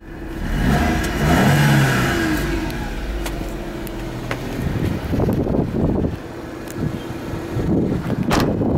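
1999 Suzuki Carry DB52T kei truck's 660 cc three-cylinder petrol engine revved up and back down a few times in the first couple of seconds, then running on. Later it is under an uneven low rumble of wind or handling noise on the microphone, with a sharp click near the end.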